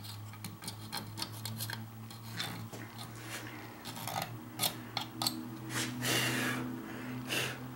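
Small irregular metal clicks and scraping from hand work at a suspension lower control arm's ball joint stud, a cotter pin being worked out of it, with one longer rasping scrape about six seconds in. A steady low hum runs underneath.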